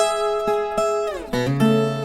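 Viola caipira, the Brazilian ten-string guitar, playing a moda de viola: plucked notes ring, then slide down in pitch about a second in and settle on lower notes.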